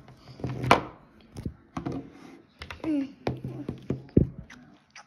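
Hard plastic animal figurines clicking and knocking against a wooden tabletop as they are handled, in irregular taps, with a couple of short vocal sounds.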